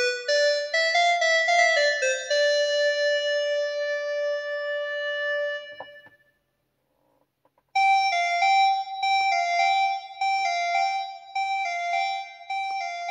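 Keyboard music in a piano tone. A run of single notes settles on a held note that fades out about six seconds in. After a moment of silence, a quick repeating figure of two alternating notes starts in a higher register.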